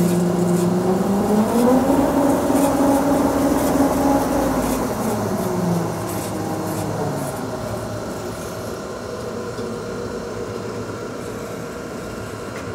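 1950s Do-All vertical band saw running, its wheels and blade turning with a steady machine hum. About two seconds in, a second hum climbs in pitch, holds, then slides back down and fades around six seconds.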